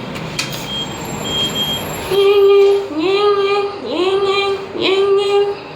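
A voice singing four long notes at the same pitch, each sliding up at its start, beginning about two seconds in. Before that, a faint short high beep repeats a few times.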